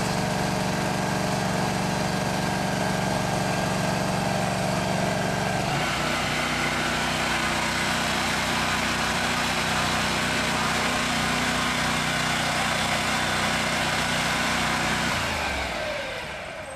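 Small engine of a pressure-washer drain jetter running steadily under the hiss of the water jet from a drain-cleaning nozzle. About six seconds in the engine note shifts, and near the end the engine stops and the sound dies away.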